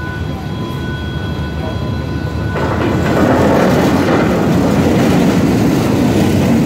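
D19E diesel-electric locomotive passing close by, its engine running loud, followed by its passenger coaches rolling over the rails. The noise swells sharply about two and a half seconds in, as a faint steady tone cuts off.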